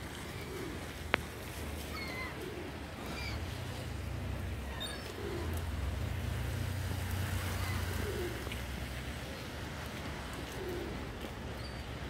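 Feral pigeons cooing, low coos every second or two, with short higher chirps over a steady low rumble. A single sharp click about a second in.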